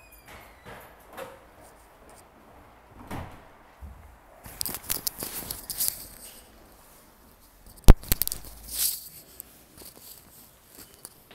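Rustling and scraping of fabric against a handheld phone's microphone, with a single sharp knock about eight seconds in, the loudest sound.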